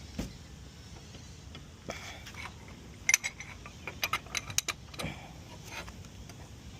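Scattered metal clicks and clinks from a bar or wheel brace working the wheel nuts, with a quick run of clicks between about three and five seconds in.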